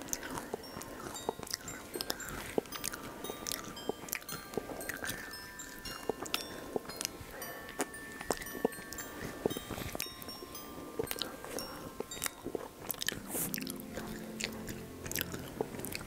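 Close-miked wet mouth sounds of eating soft whipped-cream sponge cake: chewing, lip smacks and small clicks, with cream being licked from the fingers.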